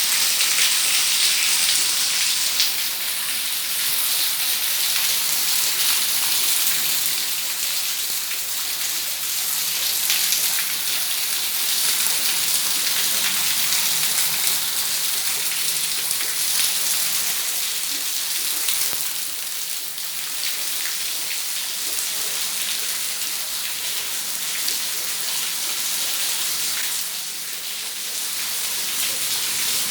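Heavy rain pouring down steadily, a dense hiss of drops hitting surfaces.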